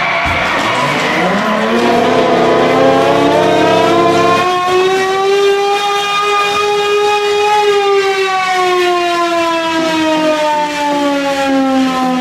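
Rink goal siren sounding for a goal. It winds up in pitch over the first few seconds, holds, then slowly winds down. A steady horn chord sounds under it and cuts off about four seconds in.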